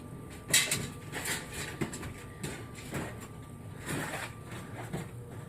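Scrap metal and junk being picked through and handled: a string of knocks and clatters, the loudest about half a second in, then more every second or so.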